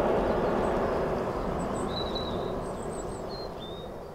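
Jet airliner engine noise fading steadily as the aircraft moves away, with small birds chirping over it about halfway through.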